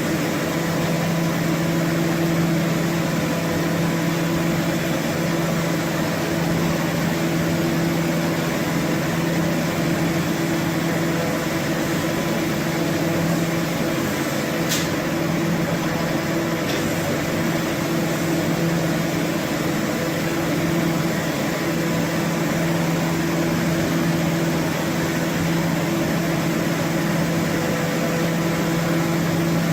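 HOMAG BOF 41/K CNC woodworking machining center running with a steady mechanical hum, two brief clicks about halfway through.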